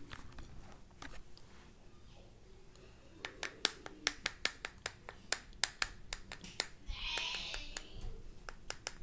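A big metal spoon clicking against a small plastic shot cup of cornstarch: a quick, uneven run of sharp clicks, about three or four a second, starting about three seconds in, with a short hissy scrape about seven seconds in.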